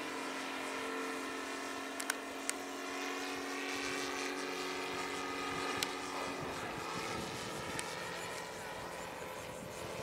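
Saito FG-60R3 three-cylinder 60cc petrol radial engine of a large radio-controlled model plane running steadily in flight, its propeller drone holding an even pitch and thinning out about six seconds in. A few sharp clicks are heard over it.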